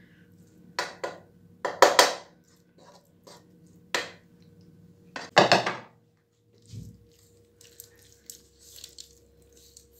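A spoon knocking and scraping against a metal bowl as cooked leek filling is emptied out: a handful of short clinks and knocks, the loudest about two seconds in and again a little after five seconds. After that come faint soft scraping sounds as the filling is spread over the dough.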